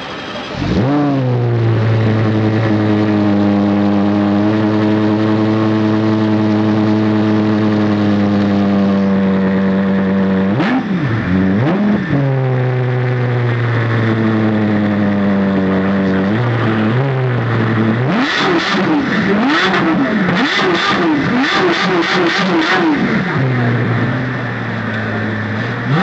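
Lexus LFA's V10 revving while standing still: it climbs about half a second in and holds a steady raised speed for several seconds, drops back and climbs to hold again, then gives a string of quick, sharp throttle blips before settling near the end.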